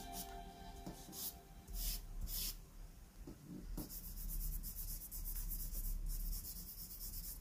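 Charcoal stick scratching and rubbing on drawing paper: a few separate strokes, then a dense run of quick strokes from about halfway.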